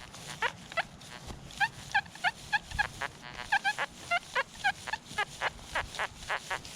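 XP Deus metal detector giving a rapid string of short, buzzy tones, several a second, some gliding down in pitch, as the coil sweeps over targets that the detectorist reads as iron.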